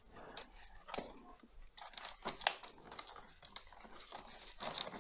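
A knife cutting an offset away from the thick, fibrous stem of an old anthurium: faint crunching and crackling, with a few sharper clicks as the blade works through, and leaves brushing against the hands.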